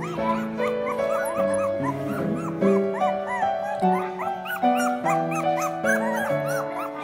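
Background music with a steady melody, over which young puppies whine and squeak repeatedly in short rising-and-falling cries, several a second.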